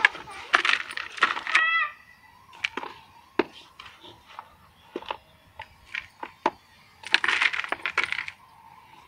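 Bangles clinking against each other as hands press and spread soil mix in a plastic pot. There is a dense flurry of clinks near the start and again near the end, with scattered single clinks between.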